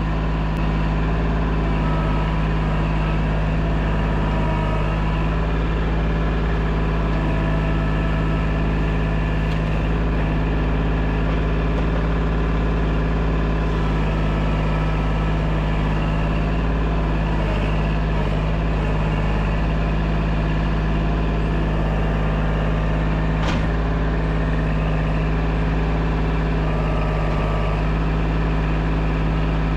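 Kubota compact tractor's diesel engine running at a steady speed, with a single sharp knock about two-thirds of the way through.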